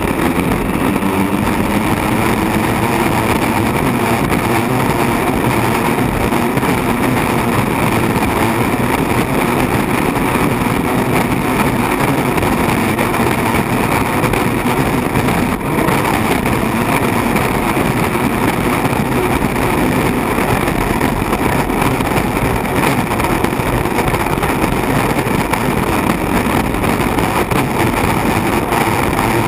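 Turbine-powered unlimited hydroplane running flat out at racing speed, heard from inside its enclosed cockpit: a loud, steady rush of engine and water noise, with one brief dip about halfway.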